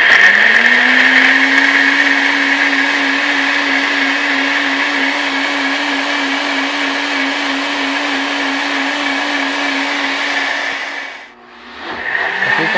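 NutriBullet personal blender blending chunks of coconut meat with milk and coconut water. The motor spins up at the start into a steady whine, stops briefly near the end, then starts again.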